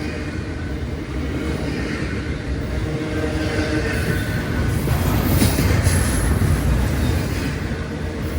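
A train rolling past on the rails, a steady rumble of wheels and cars with faint high wheel squeal, loudest a little past the middle.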